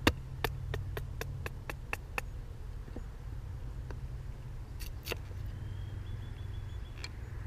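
A baton striking the spine of an LMF1 CPM3V steel knife to split a stick of seasoned dry birch: one sharp strike, then a quick run of about eight lighter taps at roughly four a second as the blade is driven down. About five seconds in come two more sharp cracks, and a last one near the end.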